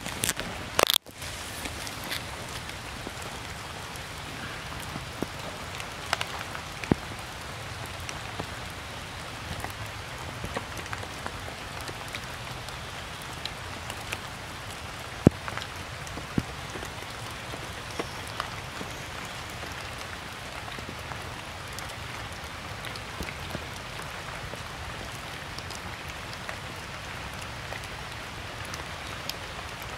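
Steady rain falling on stones, leaves and puddles: an even patter with scattered louder drops. There are a few sharp louder hits and a brief break in the first second.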